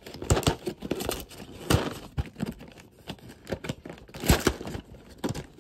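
Cardboard cereal box being torn open and handled, with irregular tearing, crinkling and crackling of the packaging.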